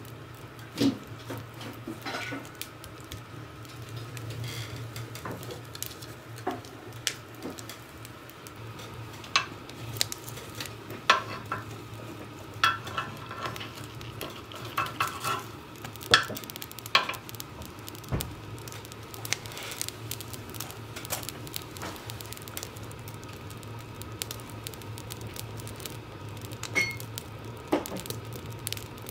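Wood fire burning in a cast-iron stove, with a metal fire tool knocking and scraping against the logs in the firebox, giving sharp clicks and clatters that bunch together in the middle and thin out toward the end. A steady low hum runs underneath.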